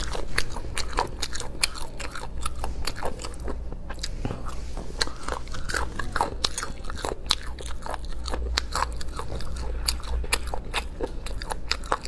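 Close-miked chewing and biting of chewy braised beef skin: a fast, irregular run of sharp mouth clicks and crunches.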